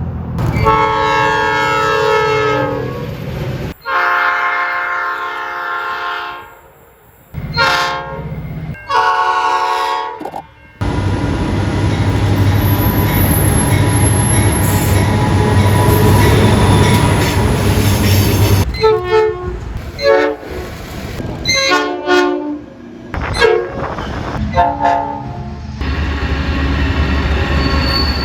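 Train horns blowing in a string of separate blasts, each a second or a few seconds long, for about the first ten seconds. Then comes a steady, noisy rumble of a running train for about seven seconds, followed by a series of short horn toots and more rumble near the end.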